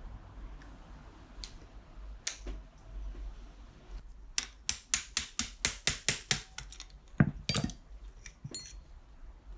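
Metal clicks and knocks from hand tools and parts being worked on a dismantled Piaggio Si moped engine crankcase: a few scattered clicks, then a quick even run of about ten sharp clicks, four or five a second, and two heavier knocks near the end.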